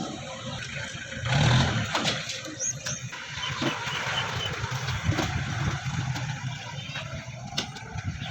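An engine running steadily, with scattered clicks and knocks over it and a louder swell about a second and a half in.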